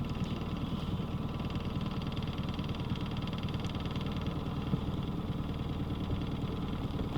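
Boat motor running steadily, an even engine hum with a fine rapid pulse.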